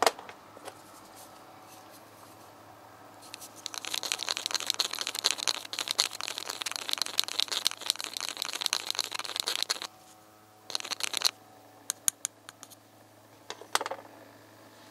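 A rod stirring petrol and two-stroke oil mixed 50:1 in a small plastic measuring cup, rattling and scraping rapidly against the cup's sides. The stirring starts a few seconds in and goes on for about six seconds, followed by two brief bursts of it.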